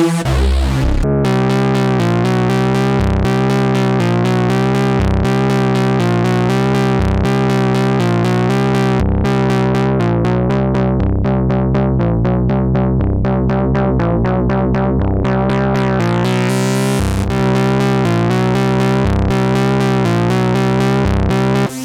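Dreadbox Typhon analog synthesizer playing a factory preset: a fast repeating note pattern, about four notes a second, over a steady low drone. The brightness fades out midway and then returns, and the sound cuts off sharply near the end.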